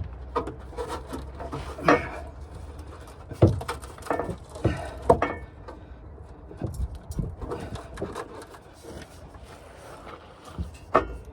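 Irregular metallic knocks and clunks, with some scraping, as an exhaust back box is worked onto its pipe and rubber hangers under the car. The sharpest knocks come near the start, around two, three and a half and five seconds in, and again near the end.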